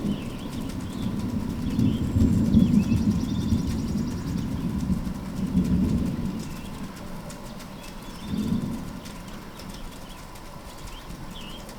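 Distant thunder rumbling in a long roll that swells and fades over the first several seconds, with a shorter rumble about eight seconds in. Birds chirp faintly above it.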